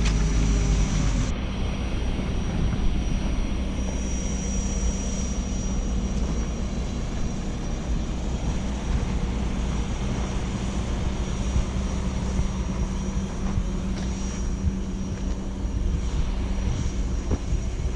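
Diesel engine of heavy earthmoving equipment running steadily, a low drone with a faint high whine over it.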